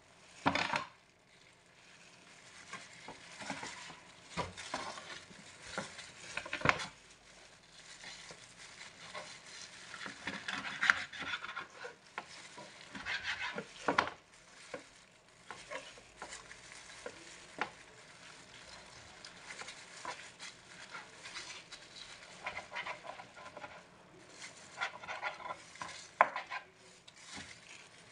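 A knife cutting up a whole raw chicken on a plastic cutting board: irregular sharp knocks of the blade on the board, between stretches of quieter slicing and wet handling of the meat.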